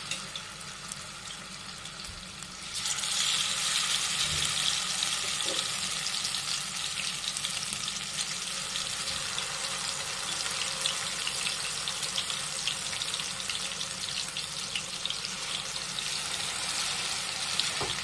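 Marinated fish steaks shallow-frying in hot oil in a pan: a steady sizzle with fine crackling, which grows sharply louder about three seconds in and holds.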